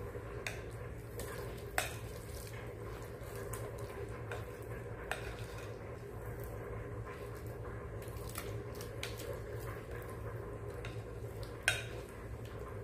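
Metal spoon scraping and clinking against a glass mixing bowl while a thick, wet casserole mixture is scooped out into a ceramic baking dish, with a handful of sharp clinks, the loudest near the start and near the end. A steady low hum runs underneath.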